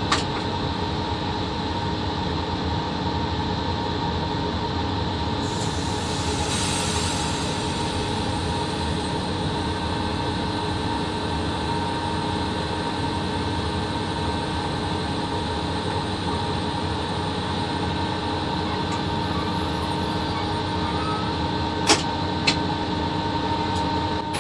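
Steady hum and rumble of a VL80 electric locomotive heard from inside its cab, with a stretch of brighter hiss about six seconds in and two sharp clicks near the end.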